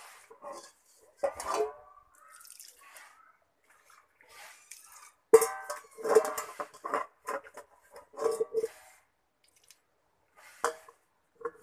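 Water sloshing and dripping in a metal cooking pot as a cloth is swished in it, with the pot knocking and clanking several times, loudest about five seconds in.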